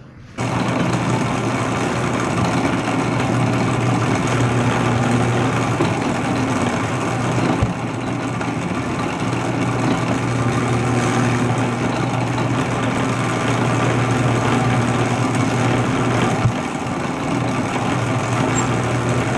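Electric dough roller (dough sheeter) running with a loud, steady hum as a lump of bun dough is fed between its rollers.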